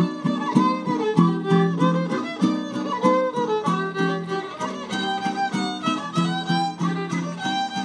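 Violin playing a lively melody over steady rhythmic strumming from a jarana and a large acoustic guitar: a trío huasteco playing a son huasteco.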